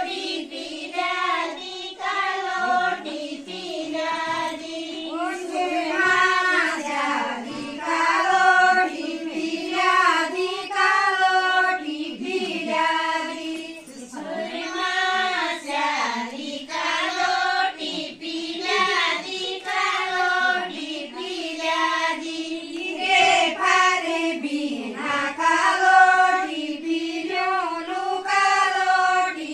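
A group of women singing a thadya geet, an Uttarakhand folk dance-song, together in unison without instruments, in long held phrases that rise and fall.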